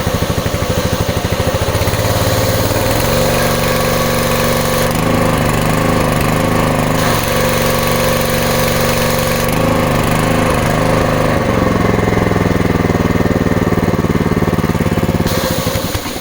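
Westinghouse WPX3200 pressure washer's single-cylinder gas engine running, starting at a low idle and then stepped up and down in speed several times with the throttle control. It dies abruptly at the very end, which the owner puts down to a spark plug that needs replacing.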